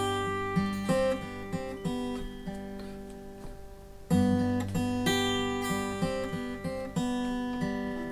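Song intro on acoustic guitar: a chord is strummed and left to ring while single notes are picked over it. A fresh chord is struck about four seconds in.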